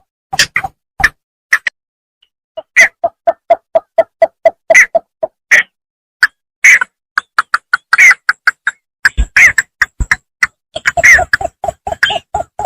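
Bittern calling from a rice field: rapid series of short, clipped notes at about five a second, broken by sharper, louder calls, with a brief pause about two seconds in.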